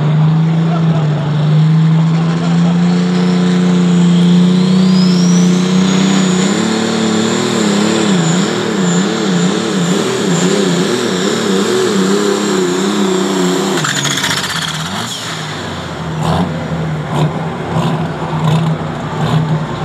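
Ford 7910 pulling tractor's turbocharged diesel engine at full power under load from the sled, its turbo whine rising to a high steady pitch. From about 7 s the engine note wavers up and down, then about 14 s in the engine is let off and the whine winds down, leaving the engine idling with some scattered clatter.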